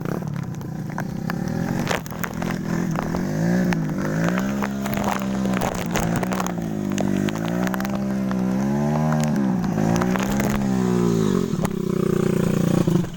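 Off-road vehicle engine revving up and down over and over, about once a second, after a few seconds of steadier running.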